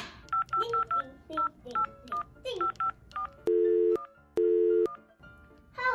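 Touch-tone telephone dialing: a quick run of about a dozen short two-tone keypad beeps, then two short bursts of ringing tone as the call goes through.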